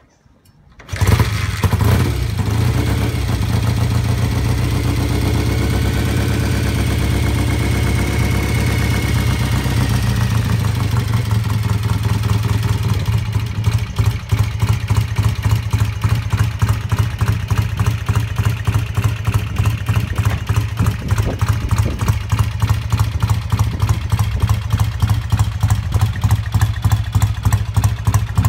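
1970 BSA A65 Lightning 650 cc parallel twin kick-started, catching about a second in and running at a fast, steady idle. From about 13 s in it settles to a slower idle with an even, pulsing beat.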